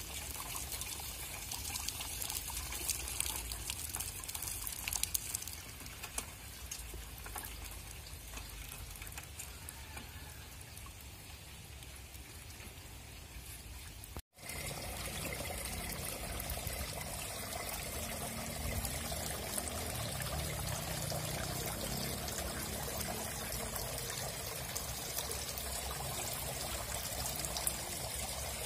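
Water trickling and pouring out of the open ends of PVC growing pipes in a pumped hydroganic rice system, a steady flow that breaks off for a moment about halfway.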